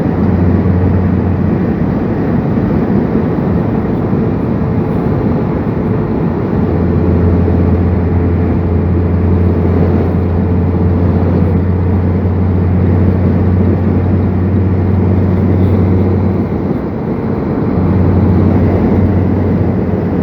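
Steady road and wind noise of a car driving at about 70 mph, with a low droning hum that fades briefly near the end and comes back.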